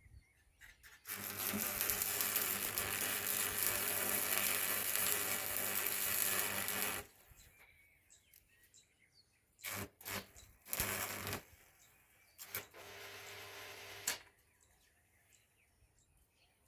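Stick (rod) arc welding: the arc crackles and buzzes for about six seconds over a steady hum, then is struck again in two short bursts and a quieter burst of about a second and a half.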